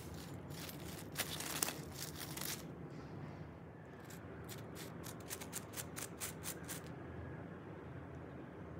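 Crisp fried potato wedges being picked up and handled on a plate: light crackles and a quick run of sharp clicks, about four a second, near the middle.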